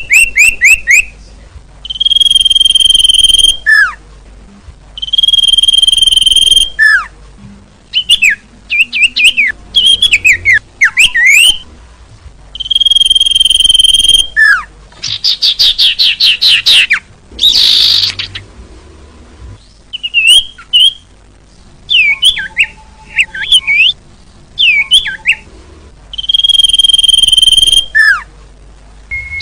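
Bird lure call (suara pikat) for small songbirds such as sirtu, sirpu and cipo. A long, even whistle of about a second and a half comes back about five times. Between the whistles come quick chirps, short down-slurred notes and a fast trill.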